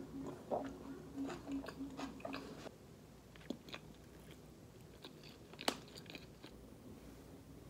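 Close-up chewing and crunching of food, including a Korean fried seaweed roll (gimmari) with glass noodles inside. There is a quick run of crunchy bites in the first few seconds, then softer chewing, with one sharp crunch near the end.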